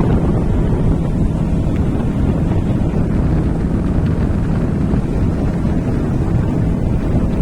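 Strong wind buffeting the microphone over a steady low rumble, loud throughout.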